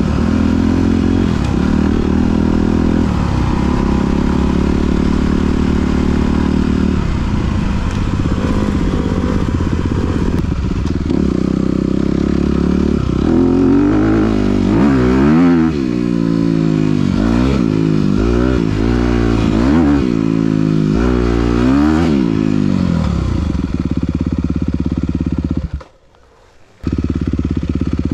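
2021 Honda CRF250R's single-cylinder four-stroke engine through a Yoshimura RS-9T titanium exhaust, running hard on a dirt trail. From about halfway it gives a quick string of revs rising and falling as the throttle is rolled on and off. Near the end the sound drops out for about a second, then the engine is heard running steadily again.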